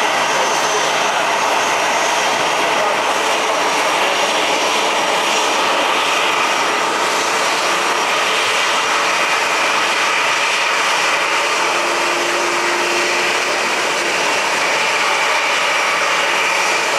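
Boeing 737 airliner's twin jet engines running at low thrust as it taxis in: a steady, continuous jet rush and whine.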